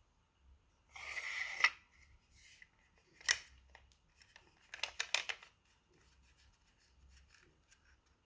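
Unboxing handling noises: a short rustle of packaging about a second in, a single sharp click a little after three seconds, then a quick run of clicks and scrapes around five seconds.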